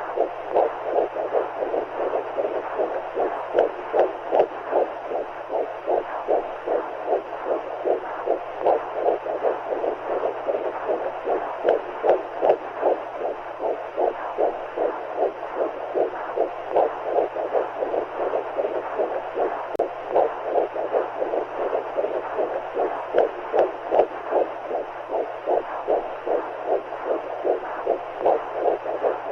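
Simulated womb sound for lulling a baby: a fast, even whooshing heartbeat pulsing over a steady low hum, meant to mix the heartbeats of mother and baby with the sound of the amniotic fluid.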